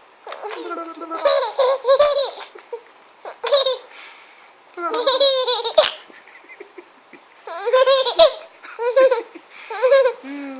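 A baby laughing in repeated bursts of high-pitched giggles, about six bouts with short pauses between them.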